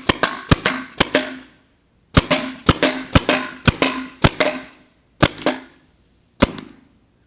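Two Tippmann TPX CO2 paintball pistols firing in rapid strings, about twenty sharp cracks, each with a short ringing tail. Near the end the firing thins to three single shots.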